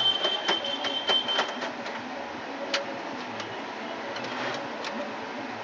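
Sharp clicks and light knocks of parts being fitted into a desktop computer case, several close together in the first second and a half and one more a little later, over steady background noise.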